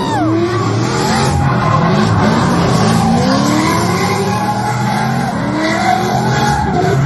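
Drift cars sliding through a corner: engines revving up and down and tires squealing as they spin in smoke.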